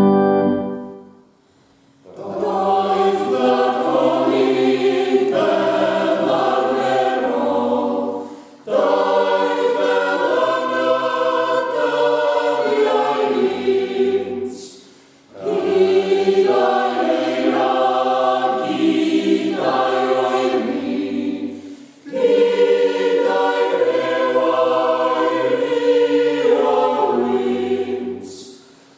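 Mixed-voice plygain party of men and women singing a carol unaccompanied, in long phrases with a short breath pause between each. An organ chord cuts off at the very start, just before the singing begins.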